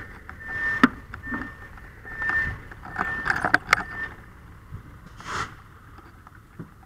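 Electronic warning beeper sounding a steady high tone about once a second, five or so beeps that stop about four seconds in. A few sharp clicks and knocks fall among the beeps, and a brief rustle follows.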